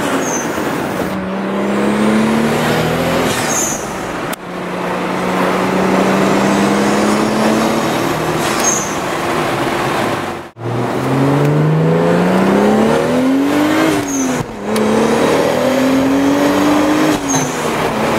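Toyota Supra's twin-turbocharged inline-six pulling hard through the gears of its five-speed manual, heard from inside the cabin: the engine note climbs, drops at each gear change and climbs again, several times. The sound breaks off abruptly a few times.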